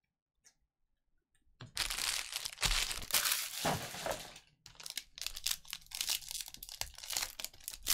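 Plastic foil wrapper of a Panini Mosaic football card pack being crinkled and torn open by hand, starting about a second and a half in after near silence, with a short lull near the middle.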